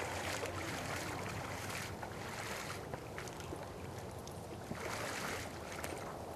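A person wading through shallow pond water, the water sloshing and splashing in surges a couple of seconds apart with each stride.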